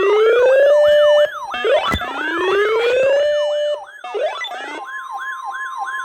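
Several electronic sirens layered together, slow rising wails over a fast repeating yelp, with a sharp click about two seconds in; a steady high tone joins the yelp about five seconds in.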